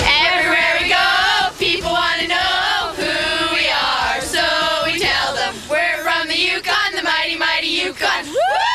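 A group of girls singing together in unison, with a high whoop that rises and falls near the end.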